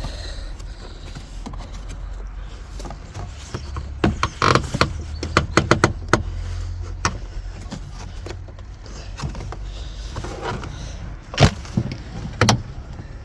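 Plastic trim clip and cover of a 2023 Nissan Leaf's rear seat being worked loose and pulled out by hand. Irregular clicks, knocks and rattles, busiest about four to six seconds in, with two sharp knocks near the end.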